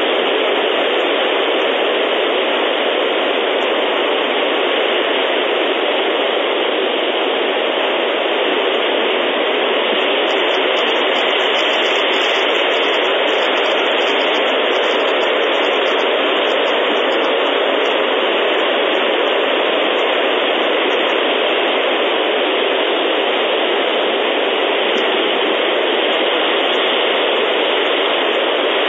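Steady, even hiss from the eagle nest camera's audio feed, unchanging throughout, with no calls or knocks standing out.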